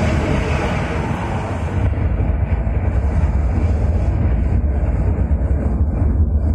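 Loud, steady low rumble over loudspeakers, part of a moving-idol tableau show's sound-effects track.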